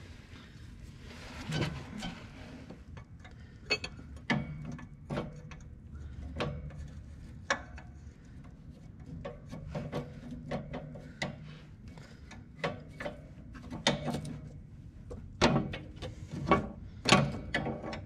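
Steel wrench working a seized fitting: irregular metallic clicks and clinks of tool on metal, with a few louder knocks near the end.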